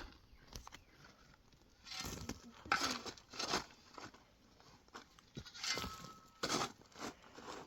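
Livestock bleating: a handful of short calls, in two clusters, one about two seconds in and another near the end.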